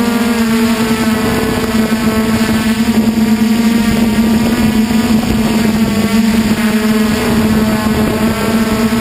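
Flame Wheel 450 quadcopter's brushless motors and propellers droning steadily in flight, a loud buzzing hum picked up close by the camera on board, with rushing air noise beneath.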